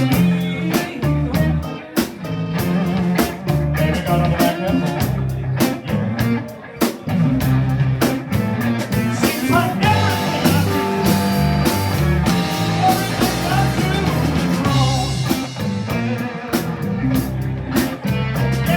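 Blues band playing: electric guitar, bass, keyboards and drums, with a steady beat.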